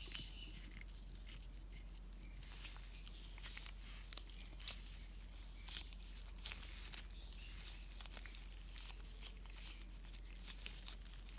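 Rubber-gloved fingers kneading and folding soft polymer clay: faint crinkling of the gloves with scattered small clicks.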